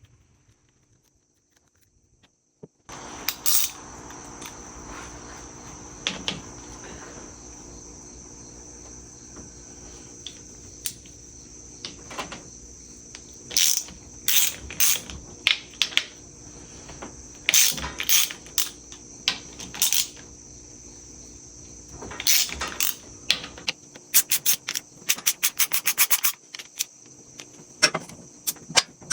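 Hand tools at work on a dirt-bike engine's side cover and kickstarter: scattered sharp metal clicks and clinks, with a fast run of ratchet-like clicks near the end. A steady high-pitched whine runs underneath.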